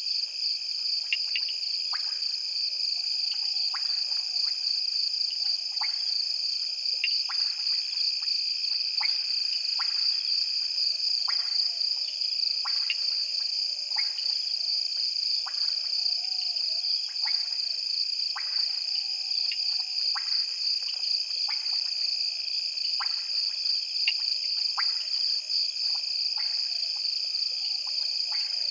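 Night chorus at a waterhole: insects keep up a continuous high, pulsing shrill trill. Frogs call through it with short sharp clicks about once a second, over faint wavering lower calls.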